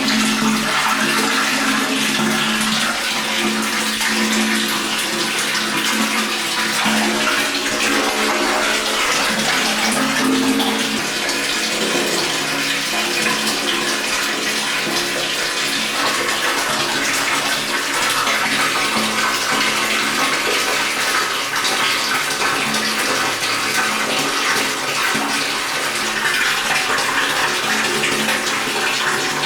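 Water running into a tank as it fills: a steady, continuous rushing splash, with low hollow tones that waver underneath.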